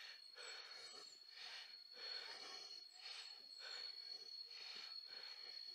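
Faint footsteps on a dirt path, about two a second, under a steady high-pitched tone.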